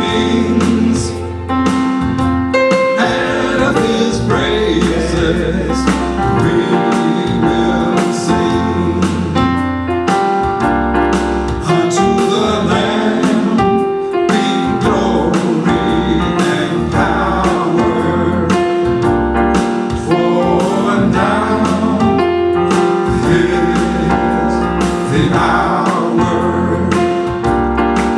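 Gospel praise song: singing with a choir over keyboard, held bass notes and regular drum hits.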